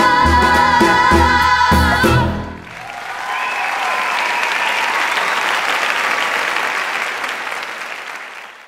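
Female singers holding a final wavering note with the band, which stops abruptly about two and a half seconds in; audience applause follows and fades away near the end.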